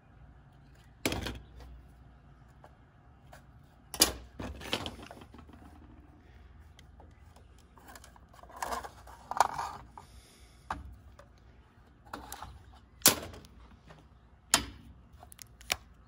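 Handling noise of a plastic plug housing and hand tools on a steel workbench plate: a series of sharp, irregularly spaced clacks and knocks as parts and tools are picked up and set down, with a short scraping patch about halfway through.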